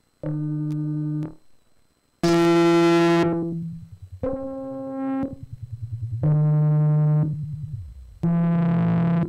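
Electronic synthesizer playing a sequence of separate held notes, each about a second long and starting roughly every two seconds. The notes change pitch and tone colour from one to the next: the second is very bright and buzzy, and the last has a sweeping filter.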